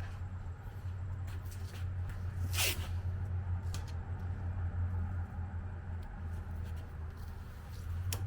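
Masking tape being unrolled and torn, with a few short rasping rips (the loudest about two and a half seconds in) and light handling noises, over a steady low hum.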